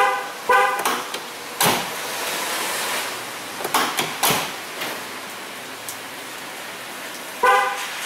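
A 1999 Chevrolet Tahoe's horn chirps twice in quick succession, the lock confirmation, then the rear cargo door handle clunks several times as it is tried, and the horn chirps once more near the end. The rear barn doors do not lock, a fault in their power lock circuit.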